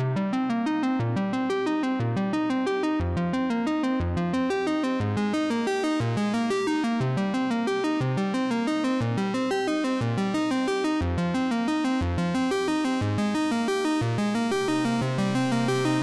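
Background synthesizer music: a steady run of short keyboard notes over a bass line that steps from note to note.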